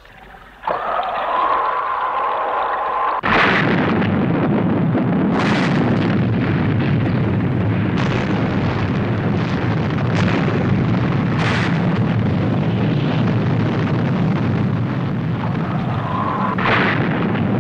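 Film sound effects of a missile launch and strike: a steady whine for about two seconds, then a sudden blast about three seconds in. A long continuous rumble of explosions follows, with a fresh blast every two seconds or so.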